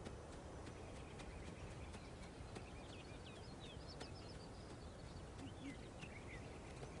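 Faint scattered hoof taps of an elk cow and her calf running, over a quiet outdoor background with small birds chirping.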